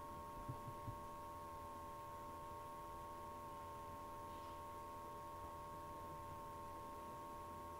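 Steady electrical hum with a faint, steady high tone over low hiss, and a few faint ticks in the first second.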